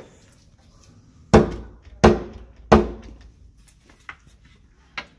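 Three loud knocks on a door, about two-thirds of a second apart, each ringing briefly, followed by a couple of faint clicks.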